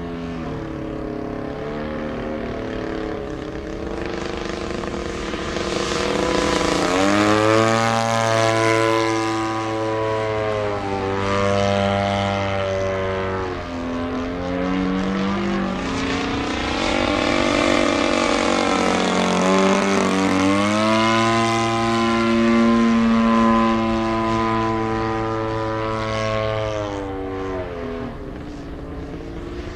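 Radio-controlled model airplane's engine and propeller running overhead, the pitch climbing and dropping several times as it manoeuvres, louder from about seven seconds in.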